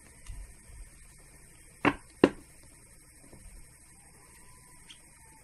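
Tarot cards being handled and laid down on a table: two sharp taps about half a second apart near the middle, with softer handling thumps in the first second.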